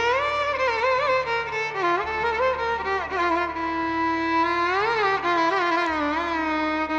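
Violin playing a Carnatic melody with many sliding, wavering ornamented notes over a steady low drone.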